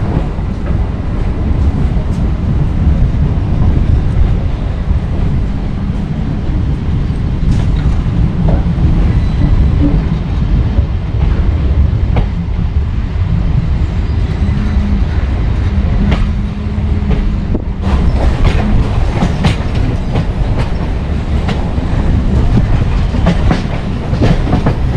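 Electric suburban local train (EMU) pulling out of a station and running, heard from its open doorway: a steady low rumble with the wheels clacking over rail joints. The clacking becomes sharper and more frequent from about two-thirds of the way in.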